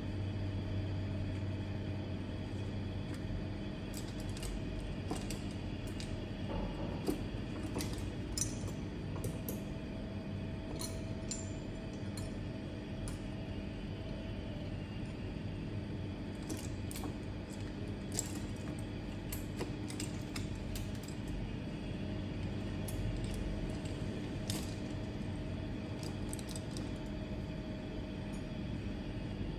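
Small metal repair tools clicking and clinking now and then over a steady low hum.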